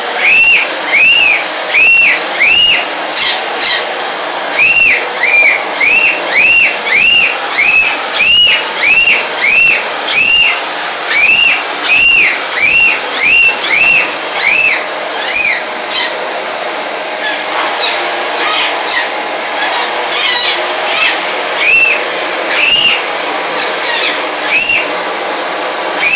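Vacuum cleaner running steadily, with a rainbow lorikeet's repeated chirps, each rising and falling in pitch. The chirps come about twice a second through the first half, then fewer and further apart.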